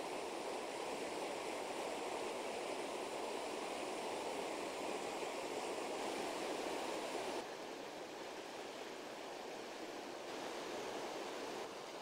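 Fast mountain river rushing steadily over a rocky bed and through a white-water rapid. The rush drops slightly in level about seven and a half seconds in.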